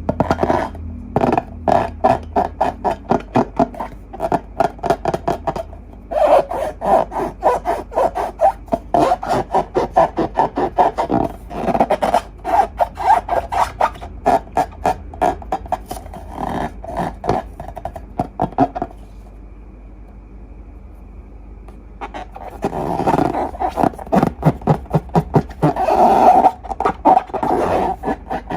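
Hands rubbing and squeezing a long modelling balloon in quick strokes, about three squeaky rubs a second, with two pauses of a few seconds.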